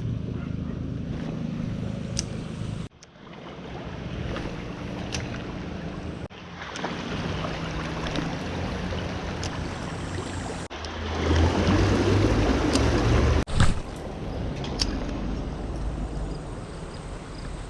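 Creek water running, with wind buffeting the microphone, louder for a couple of seconds near the middle. The sound breaks off abruptly several times.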